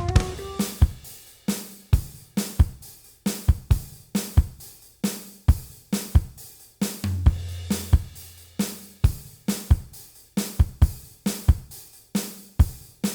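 Background music carried by a steady drum-kit beat of kick, snare and hi-hat, about two beats a second.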